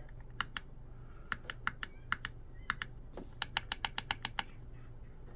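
Small tactile push buttons on an ESC program box clicking as they are pressed to step through a setting. There are a few spaced pairs of sharp clicks, then a quicker run of about eight clicks past the middle.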